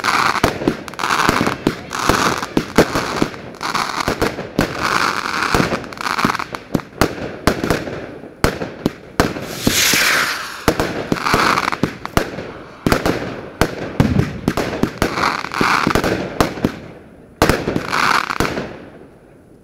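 Fireworks display going off in quick succession: sharp bangs and crackling bursts one after another, with a longer hissing burst about ten seconds in. The barrage fades away near the end.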